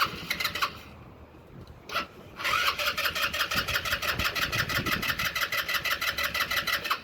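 Carbureted engine being cranked by its electric starter, turning over with a fast, even beat for several seconds from about two and a half seconds in without catching: a no-start that the mechanics put down to fuel not reaching it.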